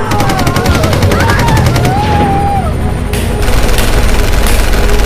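Loud recorded combat noise: rapid automatic gunfire with a wavering wail over it, then two heavier blasts about three and four and a half seconds in. It is played to accustom a protection dog to working through chaotic noise.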